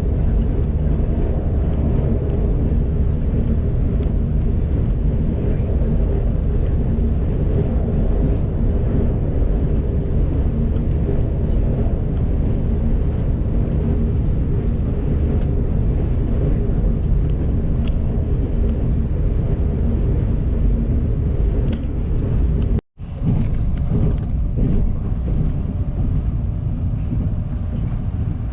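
Interior running noise of a moving TRA express train: a steady low rumble with a faint hum. It cuts out for a split second near the end, then carries on.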